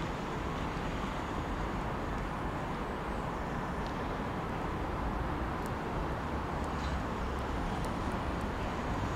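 Class 66 diesel freight locomotive approaching slowly at a distance: a low, steady two-stroke engine rumble under an even outdoor hiss, holding level throughout.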